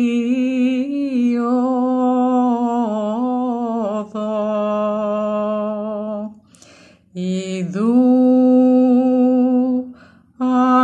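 Solo voice chanting a Byzantine hymn in the first mode, a slow melismatic line hovering around one pitch with small ornamental turns. It pauses for breath about six seconds in and again near the end.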